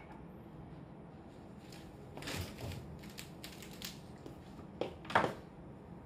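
Handling noise: a run of scattered clicks and rustles, then two sharp clicks near the end, the second one the loudest.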